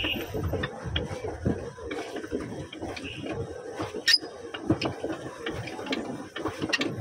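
Pedal boat under way: its paddle wheel churning the water, with irregular knocks and clicks from the pedal drive and one sharp click about four seconds in.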